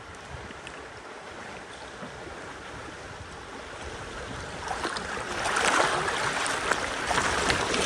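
River water rushing and splashing around a bamboo raft, growing louder about five seconds in as the water gets rougher.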